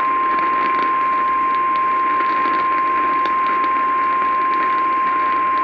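NOAA Weather Radio's 1050 Hz warning alarm tone: one steady, unbroken high tone over the hiss of radio static. It is the alert that wakes receivers before an urgent warning message is read.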